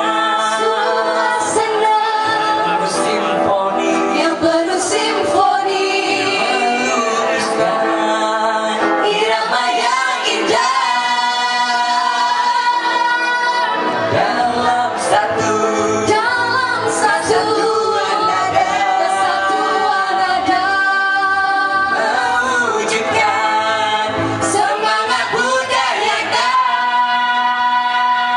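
A group of young women and a young man singing a song together through handheld microphones, the women's voices leading.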